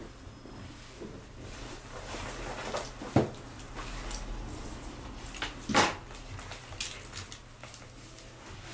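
A few sharp knocks, the loudest about three seconds in and another near six seconds, with a couple of fainter taps between them.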